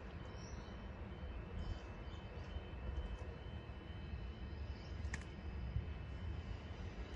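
A steady low outdoor rumble that grows slightly louder toward the end, with a few faint high chirps early on and one short, sharp click about five seconds in.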